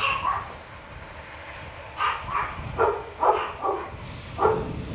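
A dog barking, short barks coming in quick pairs every second or so.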